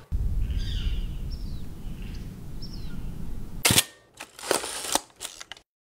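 Medium-format film camera's shutter firing with one sharp clack about two-thirds of the way in, followed by a few quieter mechanical clicks. Before it there is a steady low outdoor rumble with a few faint high chirps.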